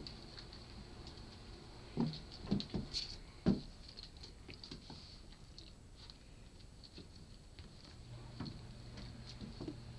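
Japanese Bobtail kittens scuffling and pouncing on a hard floor and rugs: light paw patter and soft thumps, with a cluster of four louder thumps between two and four seconds in.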